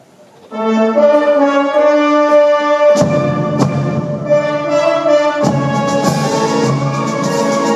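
Wind band with prominent brass starts playing about half a second in, holding sustained chords; low brass and two percussion strokes come in about three seconds in, and the full band swells again about five and a half seconds in.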